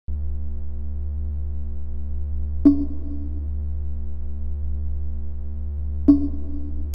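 Electronic music: a steady low synthesizer drone starts abruptly out of silence, holding several sustained tones, with two sharp struck accents about three and a half seconds apart.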